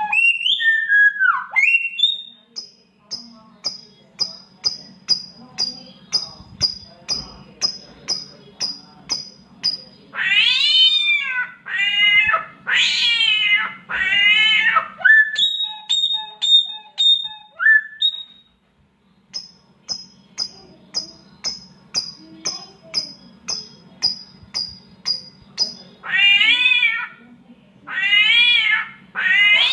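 Samyong songbird mimicking cats mating: meow-like caterwauls that fall in pitch, a few in a row about a third of the way in and again near the end. Between them come long runs of short, sharp, high notes at about three to four a second.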